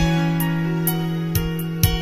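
Soft instrumental music: new notes struck about every half second over a held low note.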